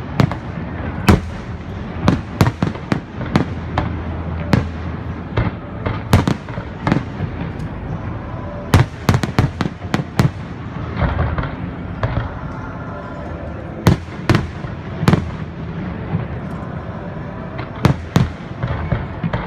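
Fireworks display: aerial shells bursting in an irregular series of sharp bangs, some bunched several to a second, over steady background noise.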